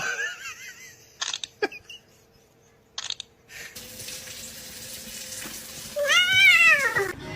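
Domestic cat meowing: a short wavering meow at the start and a longer meow that rises and falls near the end. A steady hiss like running water comes in about halfway, with a few short scuffing noises before it.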